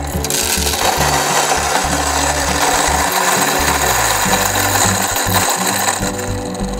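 Electric burr coffee grinder running steadily, grinding a dose of whole coffee beans.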